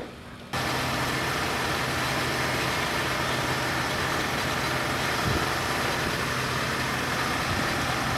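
Fire engine's pump engine running steadily under the constant hiss of a high-pressure water jet from a fire hose. It cuts in suddenly about half a second in.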